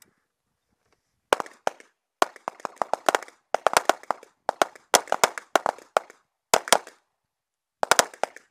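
Rapid pistol fire: strings of sharp shots, several a second, broken by short pauses, starting about a second and a half in.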